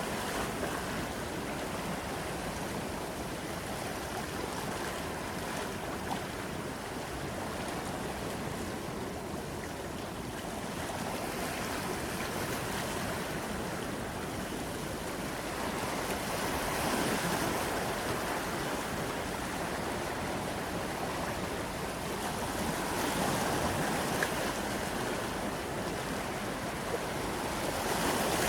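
Sea waves breaking and washing on a shore, a continuous rush of surf that swells and falls back every few seconds.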